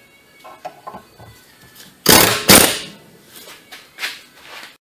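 Air impact wrench running in one short loud burst about two seconds in, with a smaller one near the end, on a puller bolt clamped onto a CV axle joint; light metal clinks and taps around it.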